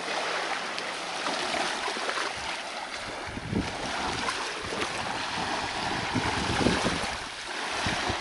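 Small waves lapping at the water's edge of a beach, with wind buffeting the microphone in irregular low rumbles.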